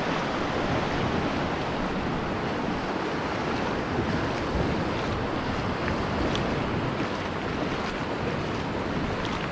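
Shallow surf washing in and out over sand, with wind buffeting the microphone as a steady rush.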